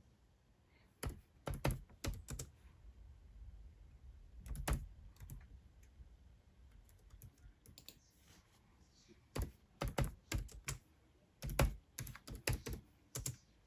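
Irregular clusters of sharp clicks and knocks from hard objects being handled, coming in groups with short quiet gaps, busiest about a second in, around five seconds in, and again after nine seconds.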